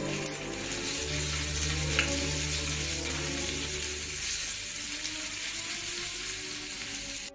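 Chopped onion and peppers sizzling as they fry in a small pan, stirred with a spoon, with one sharp click of the spoon against the pan about two seconds in.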